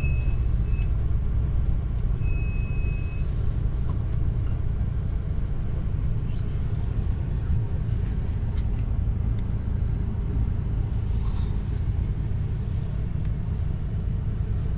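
Low, steady rumble of the RV's engine and road noise heard from inside the cab while it moves slowly in city traffic. Two brief high tones sound in the first few seconds.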